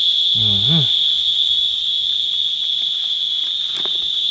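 Steady, shrill chorus of insects, one continuous high-pitched drone. A short voice sound comes under a second in.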